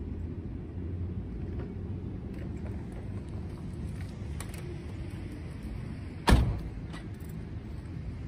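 A car door opening with small clicks and rustles, then slammed shut with one sharp, loud bang about six seconds in, over a steady low rumble.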